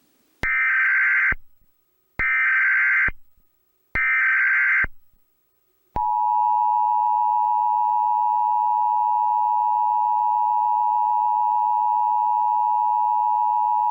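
Emergency Alert System header: three short bursts of digital SAME data tones, about a second each with a pause between. They are followed by the EAS two-tone attention signal (853 and 960 Hz together), held steady for about eight seconds.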